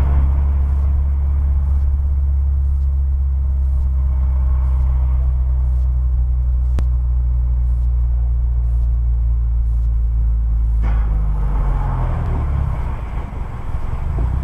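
Steady low rumble of a car driving at freeway speed, heard from inside the cabin: engine and tyre road noise. A faint click sounds about seven seconds in.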